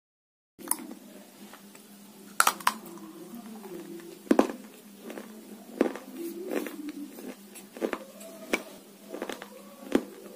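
Scattered sharp taps and clicks as pieces of crisp food are handled and set down on a tabletop, over a steady low hum.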